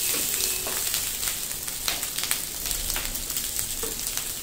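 Rice, meat and vegetables sizzling in hot oil in a non-stick frying pan, with a slotted spatula scraping and clicking against the pan as the rice is stir-fried.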